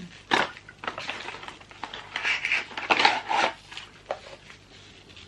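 Perfume box and packaging being opened and handled by hand: a sharp click about half a second in, then rustling and scraping strokes.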